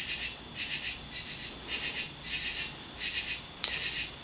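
Insects chirping in a steady rhythm, a short pulsing chirp about every half second, over a faint low hum, with a single sharp click near the end.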